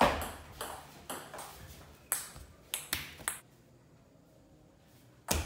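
Table tennis rally: the ball clicking sharply off the paddles and bouncing on the table, about eight hits in the first three and a half seconds. The point ends, then after a pause of about two seconds the ball is struck again near the end as play resumes.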